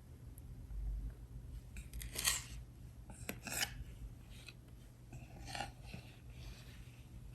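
A few short, faint scraping or rubbing strokes with pauses between them, over a low steady hum.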